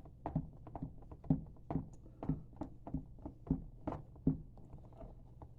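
Green sand being rammed down into a wooden core box around a pattern: a steady run of short knocks, about two or three a second.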